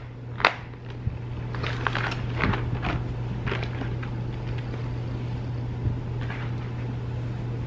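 Clear plastic dog cone (Elizabethan collar) being unsnapped and pulled off: a sharp snap about half a second in, then a few seconds of plastic scraping and rustling as it slides free, over a steady low hum.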